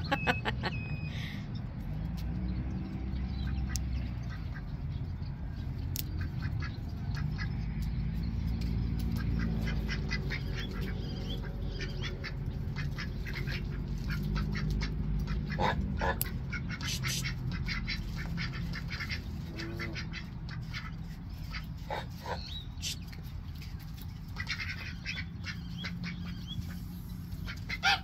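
Ducks quacking, many short calls in quick succession, over a low steady rumble.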